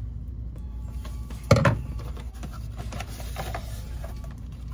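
A small cardboard box being cut and pulled open by hand: light rustling and small clicks, with one sharp knock about a second and a half in.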